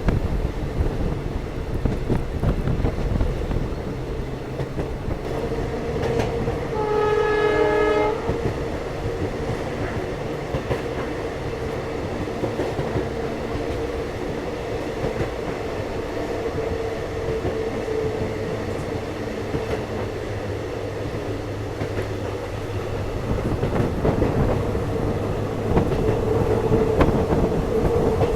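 Passenger train running with wheels clattering over rail joints and a steady whine. About seven seconds in, the locomotive horn sounds once for about a second.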